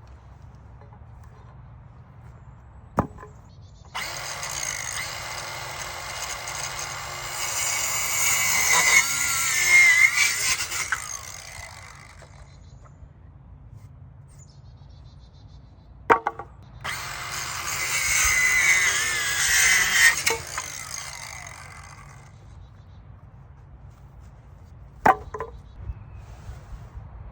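Ryobi 18V ONE+ 4-1/2" cordless circular saw cutting through 2x4 lumber twice. The first cut lasts about eight seconds and the second about five, and a sharp click comes shortly before each.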